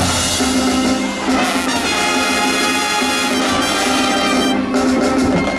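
Marching band playing, its brass section holding full, sustained chords, with a change of chord near the end.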